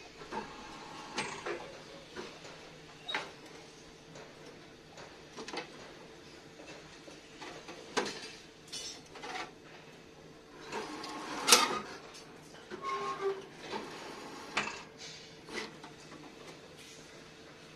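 Electric rebar bending machine running with a faint steady hum while steel bars knock and clank against the machine's bending disc and each other as a bundle is fed in and bent. The clanks come irregularly, with the sharpest one a little past the middle.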